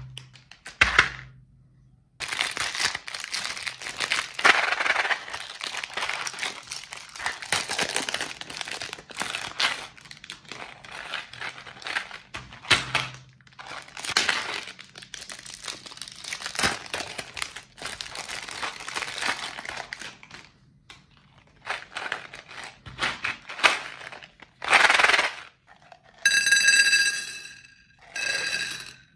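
Plastic candy wrapper crinkling and tearing as a Milka Bonibon pack is opened by hand. Near the end, sugar-coated chocolate candies pour out of a tube and clatter onto a plate, which rings.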